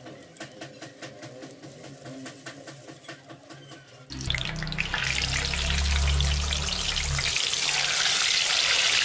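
Oil frying: soft, scattered crackle of battered fritters in a wok, then from about four seconds in a sudden, loud, steady sizzle as battered fish fries in hot oil, bubbling hard around it.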